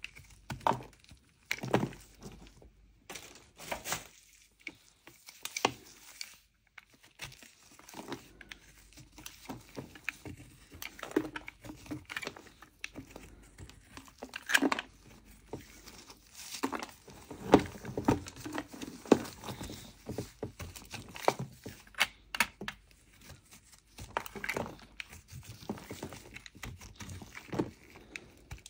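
Snap-off utility knife blade scraping the dry crust off a large lump of edible mocha clay, in irregular crackling strokes as flakes break away.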